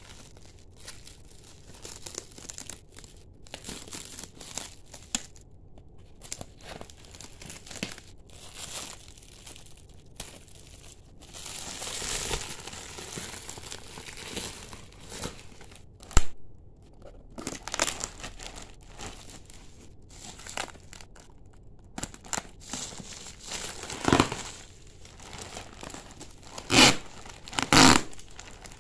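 Clear plastic wrapping crinkling and tearing as it is cut with scissors and pulled off a parcel, in irregular rustles with a sharp click about halfway and several louder crinkles near the end.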